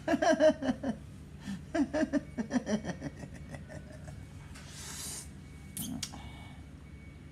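A man's wordless vocal sounds while licking condensed milk from a tube: a run of short pitched hums or giggles over about the first three seconds, then a breathy slurp and a few sharp mouth clicks.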